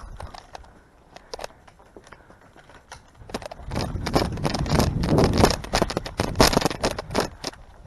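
Close, irregular crackling and rustling, sparse at first, turning loud and dense about three and a half seconds in and easing near the end.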